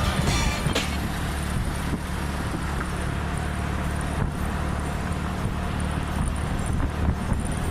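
Repaired scooter's small engine running steadily while being ridden on the road.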